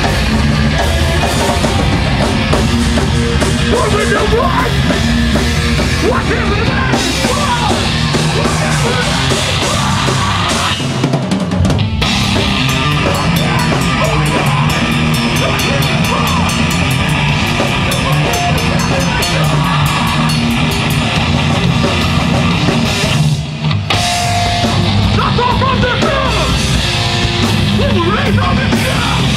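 Heavy metal band playing live: distorted electric guitar, electric bass and drum kit. The music stops briefly twice, about eleven and twenty-three seconds in.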